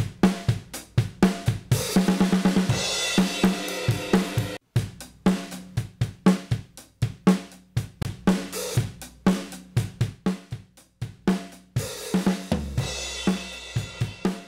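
Recorded drum kit playing a steady beat, with kick, snare, hi-hat and cymbals and no vocals. The sound drops out completely for a moment about four and a half seconds in.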